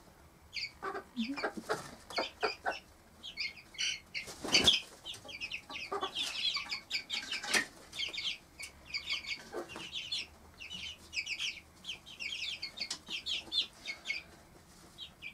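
Four-week-old cuckoo Marans chicks peeping in quick runs of short high-pitched notes, with a few low clucks from the mother hen. A brief loud rustle about four and a half seconds in.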